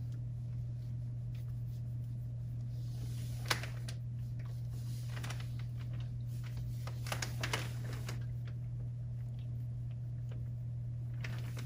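Steady low hum of room tone with a few light clicks: a sharp one about three and a half seconds in and a small cluster about seven seconds in, among small rocks, brushes and paint cups being handled on a tabletop.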